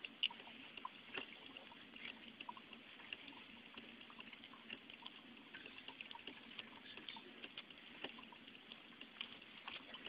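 Drip coffee maker brewing: faint, irregular sputtering and dripping, many small pops a second.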